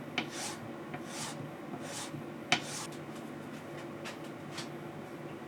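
A bar of white honing wax rubbed onto a 2500 grit leather honing strop in a series of short strokes, with one sharp click about two and a half seconds in, over a steady low hum.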